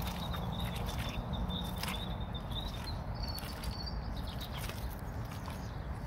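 Footsteps on wet, muddy grass, a run of short soft thuds over a steady low rumble.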